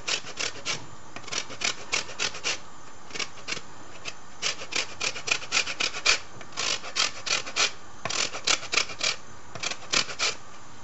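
Lemon being grated on a metal box grater for its zest: quick rasping strokes in short runs of several a second, with brief pauses between the runs.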